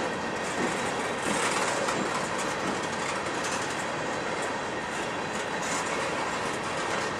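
Freight train of tank cars rolling past on steel rails: a steady rumble of wheels on track, with scattered clacks as the wheels cross rail joints.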